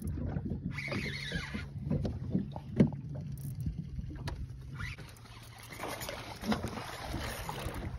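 Angler cranking a spinning reel against a hooked barramundi aboard a small boat, over a steady low hum that weakens about five seconds in. There is a sharp knock a little before three seconds in, and stretches of hiss around one second and again around six to seven seconds.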